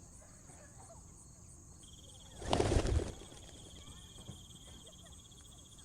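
Added nature soundtrack of a steady high insect drone with scattered small chirps, broken about two and a half seconds in by a loud, half-second flutter of pigeon wings beating past.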